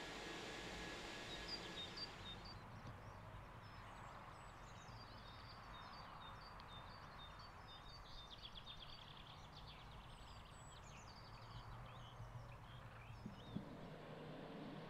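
Small birds chirping and calling, faint, with a brief fast trill about eight seconds in. A soft hiss fades out about two seconds in, and a single short knock comes near the end.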